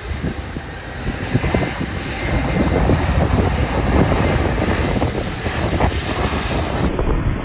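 Jet engine noise from a Boeing 787-10 airliner rolling along the runway, a loud, even rush that grows louder about a second in and stays high.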